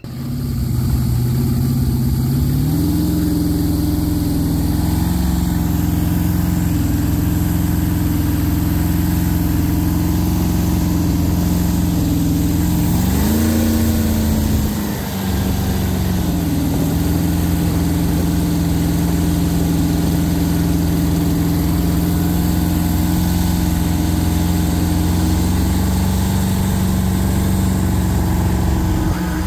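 LS V8 engine of a jet boat running under way while towing a tube. Its note steps up in pitch about two seconds in, rises and briefly dips about halfway through, then runs steady again, over the rush of wind and water.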